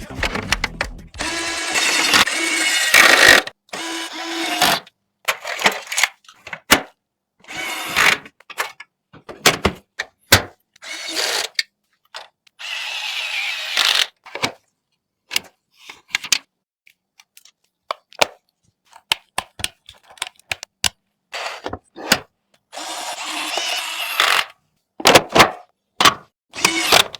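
PC parts being handled and fitted: a string of sharp clicks and snaps, broken by several noisy bursts of scraping or whirring lasting a second or two each.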